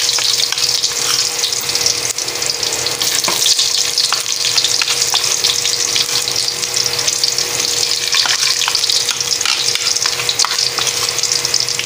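Garlic and freshly added sliced onion frying in hot oil in a wok: a steady sizzling hiss full of small crackles and pops.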